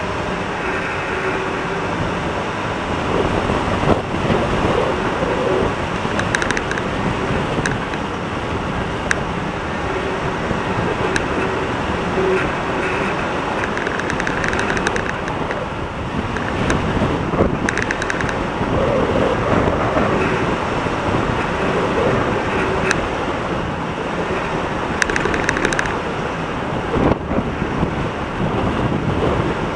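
Four-wheel drive driving over soft beach sand: a steady mix of engine and tyre noise, with scattered light clicks and rattles.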